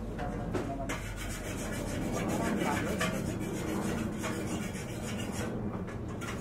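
Rough scraping and rubbing made of many quick strokes, going on steadily.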